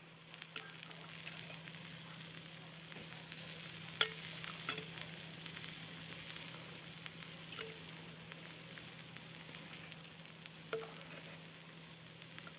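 Food sizzling steadily in a cast-iron frying pan over embers, with several sharp knocks of a metal ladle against a terracotta pot, the loudest about four seconds in.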